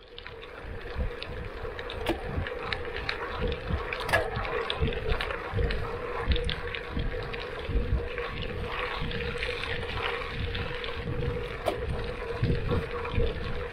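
Gravel bike rolling along a hard-pack gravel road, heard from a handlebar-mounted camera: tyres crunching over the gravel with irregular knocks and rattles from the bumps, wind on the microphone, and a faint steady hum underneath.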